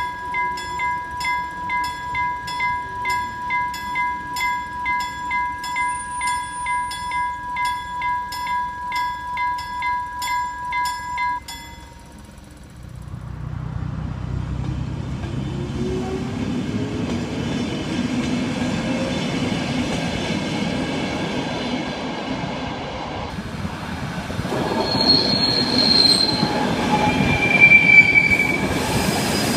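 Level-crossing warning bell ringing in a rapid, steady pulse, about two and a half strokes a second, which cuts off suddenly after about eleven seconds. Then an electric train runs past with a growing rumble, and its wheels squeal in high bursts near the end.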